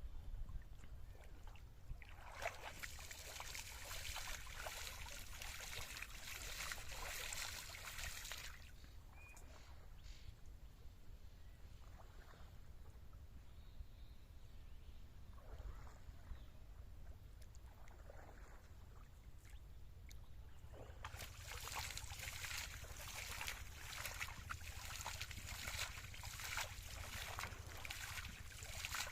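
Water sloshing and splashing in two long stretches, from about two seconds in to about eight, and again from about twenty-one seconds to the end, with a few brief splashes between. A steady low rumble runs underneath.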